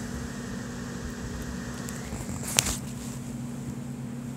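Steady low mechanical hum, like a fan or air conditioner, with a single sharp click about two and a half seconds in.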